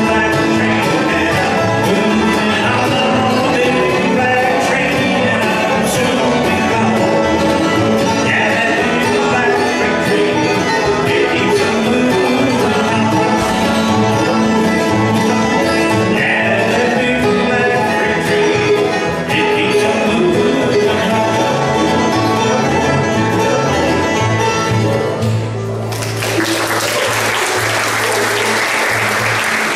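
Live bluegrass band playing acoustic guitar, banjo, mandolin, lap-style resonator guitar and upright bass. About 26 seconds in, the song ends on a held low chord and the audience breaks into applause.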